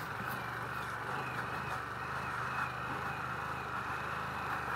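Harley-Davidson Pan America's Revolution Max 1250 V-twin engine running steadily as the motorcycle is ridden off-road, under a steady hiss.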